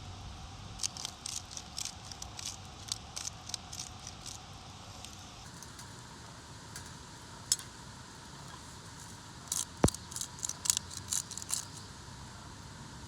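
Campfire crackling: irregular clusters of sharp pops and snaps over a steady hiss, one cluster about a second in and another near the end, with a single louder pop in between.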